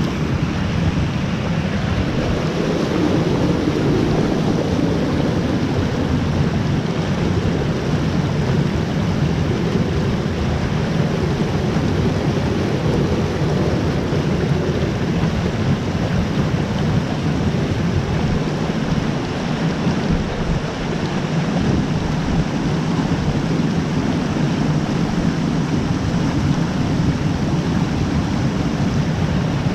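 Steady, loud rush of river water tumbling over a shallow rocky riffle close by.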